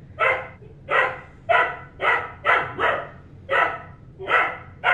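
Young golden retriever puppy barking over and over, about nine short barks at roughly two a second.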